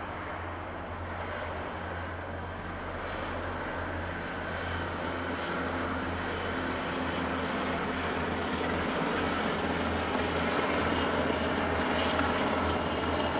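UH-60 Black Hawk helicopters flying past in formation: a steady rotor and engine sound that grows gradually louder.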